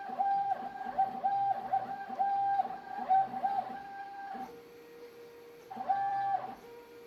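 Stepper motors of a CNC writing machine whining in short, quick moves, each run on one pitch that sweeps up and down at its ends, as the pen traces the letters. From about four and a half to six seconds in, and again near the end, a lower, steadier tone takes over.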